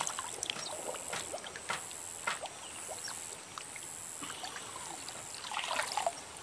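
Faint ambience at the water's edge: water lapping and trickling quietly, with scattered light ticks and a steady high hiss.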